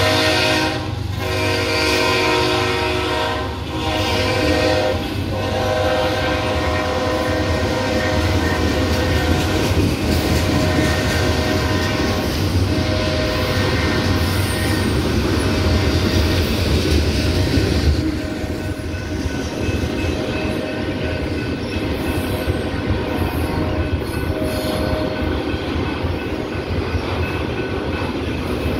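Locomotive air horn of a BNSF freight train sounding several blasts in the first five seconds or so, heard down the line, over the steady rumble and clickety-clack of empty autorack railcars rolling past. The rumble eases a little about 18 seconds in.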